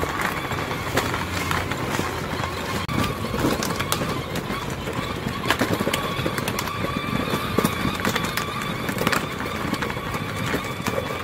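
Children's ride-on toy motorbike driving along a pavement: a steady motor whine over the rattle and clicking of its wheels.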